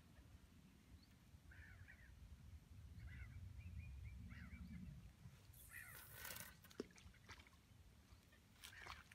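Faint bird chirps over a low wind rumble; a little past halfway, a short rushing swish as a fishing rod with a method feeder rig is cast, followed by a sharp click.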